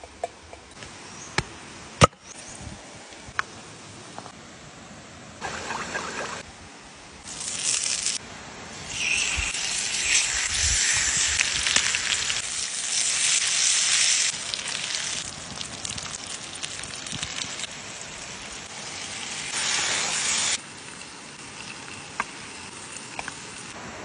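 Salmon steaks sizzling on a hot flat stone over wood embers, in spells of hissing that come and go, the longest lasting about six seconds. A few sharp clicks near the start.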